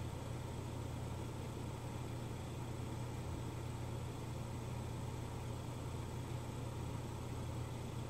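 Honda Accord's engine idling, a low, even hum with no change.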